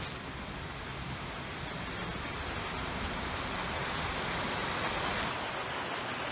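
A river rushing steadily, an even noise of flowing water; the deep part of the rush thins out about five seconds in.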